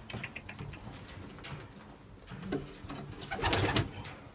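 Domestic racing pigeons cooing softly in a small wooden loft, with a short rustle about three and a half seconds in.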